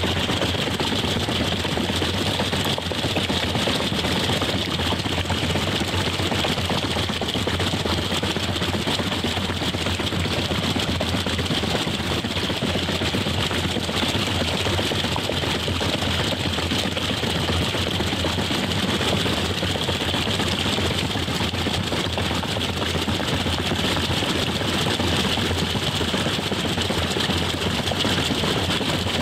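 Water turbine running under partial admission: a loud, steady noise of rushing water and machinery with a constant low hum, unchanging throughout.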